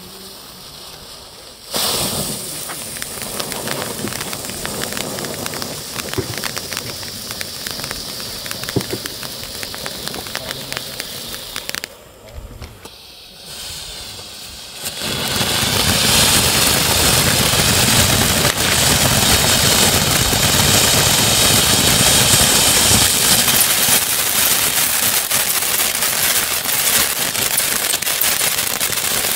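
Puppy Fountain consumer firework fountain burning: a hissing spray of sparks starts about two seconds in, drops off briefly near the middle, then comes back louder with dense crackling.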